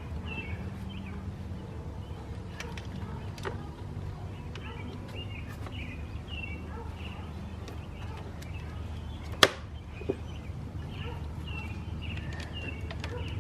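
Small clicks and knocks of motorcycle parts being handled, with one sharp click about nine and a half seconds in and a smaller one just after, over a steady low hum and faint bird chirps.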